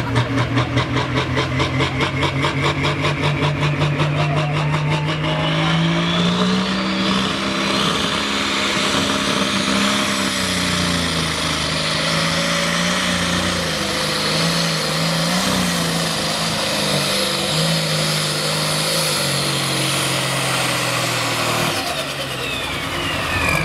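Super stock pulling tractor's engine, first throbbing at a lumpy idle while hooked to the sled. It then revs up over a few seconds and runs at high revs under full load as it drags the weight sled, its pitch wavering, before easing off near the end.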